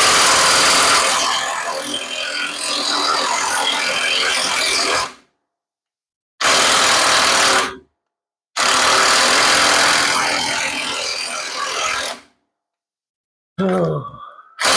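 Impact wrench working the lower shock-absorber mounting bolts, run in three long bursts of hammering with short pauses between them, the trigger pulsed on and off to break the bolts loose. A short grunt comes near the end.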